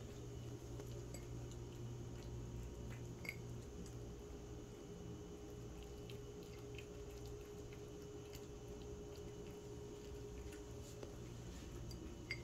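Cats pawing at the water in small ceramic bowls: a few faint clicks and light water sounds over a steady low room hum.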